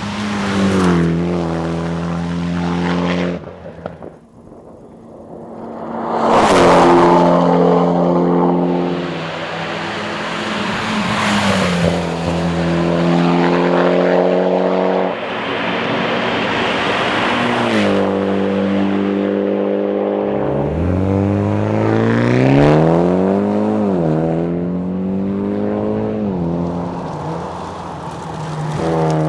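Mitsubishi Lancer Evolution X's turbocharged four-cylinder engine running hard at rally pace, revs climbing and dropping back at each gear change several times. Near the middle the revs sweep up and down as the car brakes and accelerates through a bend.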